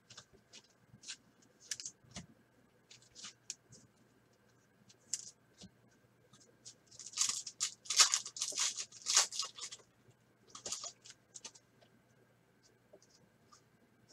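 A 2020 Certified football card pack's foil wrapper being torn open by hand. There is a dense burst of crinkly tearing from about seven to nine and a half seconds in, with scattered light crackles and rustles of the wrapper and cards being handled before and after.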